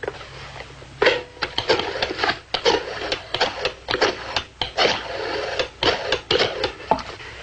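Rotary telephone being dialled: runs of mechanical clicks as the dial is turned and spins back, one digit after another.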